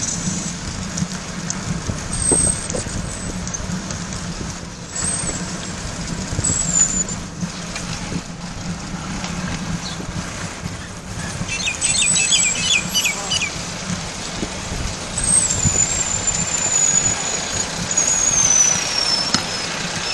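Bicycle riding noise: wind rumbling on the bike-mounted microphone and tyres rolling on a concrete path. A high-pitched squeal comes in short bits, then for the last several seconds holds longer and slowly falls in pitch as the bike slows: bicycle brake squeal.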